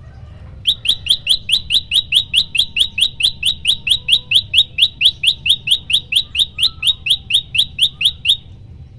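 Common tailorbird giving its loud 'tembakan' call: a rapid, evenly paced string of sharp upslurred notes, about five a second, starting about a second in and running for nearly eight seconds before stopping abruptly. A faint low rumble sits underneath.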